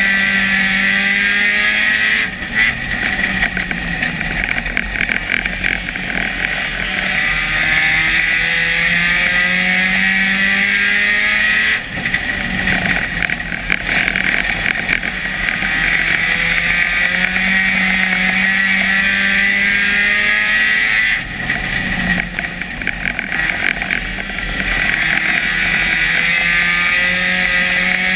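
Dirt-track race car's engine heard from inside the cockpit, running hard with its pitch climbing along the straights. It dips and drops back briefly three times, about every nine and a half seconds, as the driver lifts for the turns each lap.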